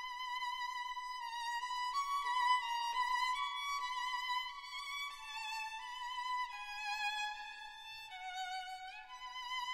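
Background music: a violin playing a slow melody with vibrato, the notes changing every half second or so, with a rising slide near the end.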